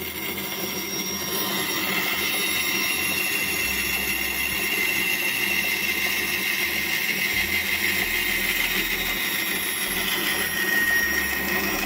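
Band saw running and cutting through the fin of a 3D-printed plastic model shark: a steady machine noise with a high whine, which grows stronger near the end as the cut finishes.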